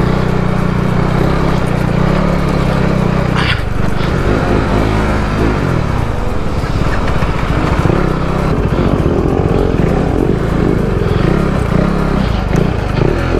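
KTM RC motorcycle's single-cylinder engine running as it is ridden at low speed. The sound changes abruptly about three and a half seconds in.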